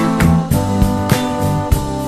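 Background music: an instrumental stretch of a song with a steady beat, no singing.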